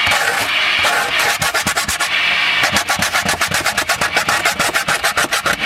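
Hand sanding with coarse 80-grit sandpaper, rubbed back and forth. The strokes are longer at first, then from about a second in become a quick, even scrubbing of several strokes a second.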